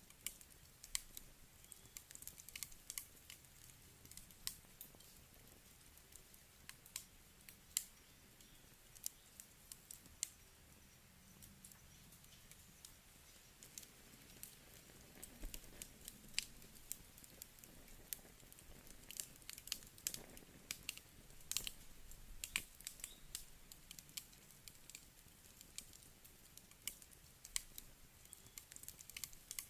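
Wood fire crackling: irregular sharp pops and snaps, several a second, over a faint low rumble of burning.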